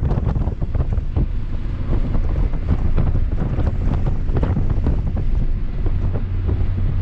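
Ford Fiesta ST at speed on a race track: a loud, steady low rumble of engine and road noise, with wind buffeting the microphone and frequent small knocks and rattles.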